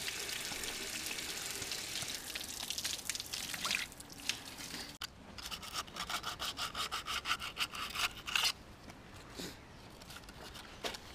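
Hose water running steadily out of a Mariner 4hp two-stroke outboard's cooling passages. After about five seconds this gives way to quick back-and-forth strokes of abrasive paper rubbing down the machined metal face of the power head, about five strokes a second, in short spells.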